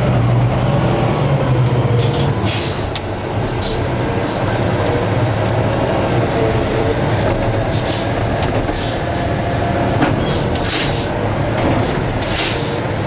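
Madill 120 grapple yarder's diesel engine running under load, heard from the operator's cab, its pitch rising and falling as the machine works a log with the grapple. A string of short, sharp hisses cuts in several times over the engine, about two seconds in and again more often in the second half.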